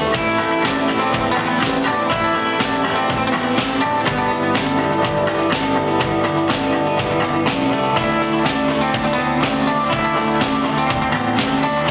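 Live rock band playing an instrumental passage: a drum kit keeping a steady beat under electric guitars and bass.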